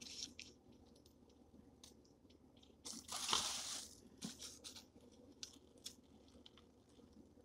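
Scratch-off lottery tickets being handled and shuffled: a rustle of card stock lasting about a second, starting about three seconds in, with scattered light crackles and taps around it.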